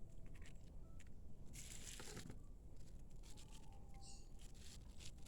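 Faint handling sounds of a warm, steamed lemon being squeezed by hand: scattered small clicks and a brief wet rustle about two seconds in.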